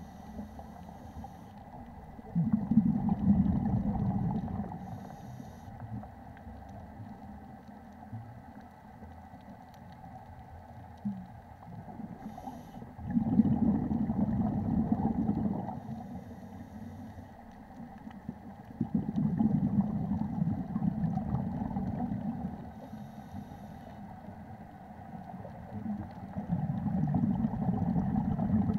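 Scuba diver's breathing underwater: four bursts of exhaled regulator bubbles, each lasting a few seconds and spaced several seconds apart, with faint hissing inhalations between them.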